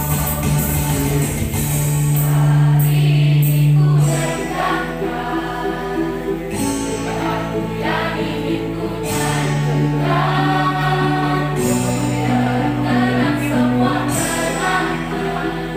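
A mixed choir of young men and women sings together in several parts, with long held low notes underneath that change every few seconds.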